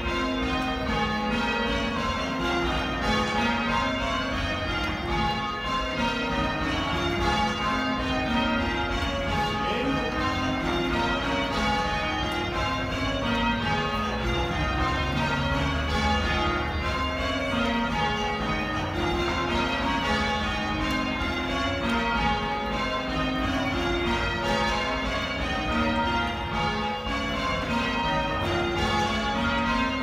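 Church bells change ringing in a quarter peal: a continuous, even stream of bell strikes sounding one after another in shifting order, heard from the ringing chamber below the bells.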